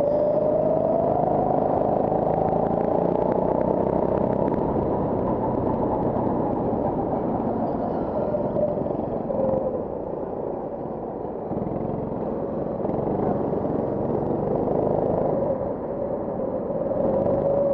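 Go-kart engine heard from on board, accelerating with its note climbing over the first few seconds, easing off about halfway through for a corner, then picking up again near the end.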